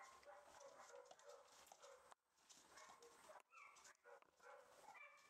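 Faint yips and whines from rough collie puppies playing, short high calls coming one after another in quick succession.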